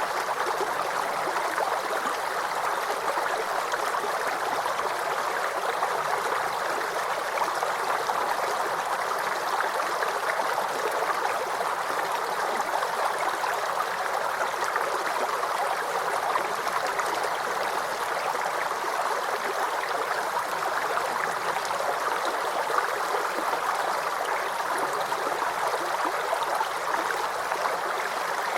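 Small forest creek babbling and gurgling over stones, a steady, even rush of running water.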